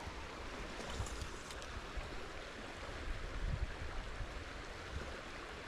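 Water of a small trout stream running, a steady rush.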